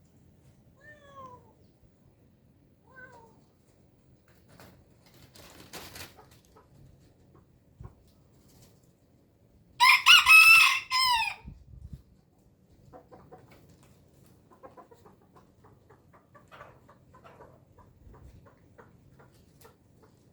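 A rooster crows once, loudly, about ten seconds in, for about a second and a half. Two faint short falling calls come in the first few seconds, and faint light ticks follow later.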